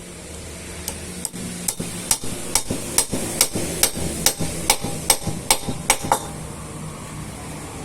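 About a dozen sharp, ringing knocks, evenly spaced at a little over two a second, stopping about six seconds in. A steady low machine hum runs underneath.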